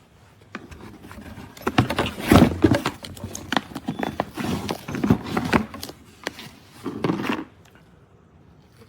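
Handling noise from the cycling shoes and their packaging: a run of irregular knocks, clatters and rustles that stops about a second before the end.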